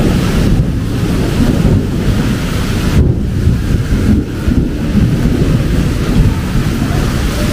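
Heavy rain with wind buffeting the microphone: a loud, gusty low rumble that rises and falls unevenly over a steady hiss of rain.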